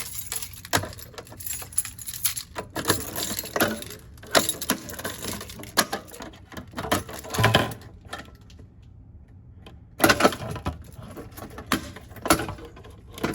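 Irregular clicks, clacks and light metallic rattles of a Notifier manual pull station being worked by hand and reset, with a quieter pause about eight seconds in.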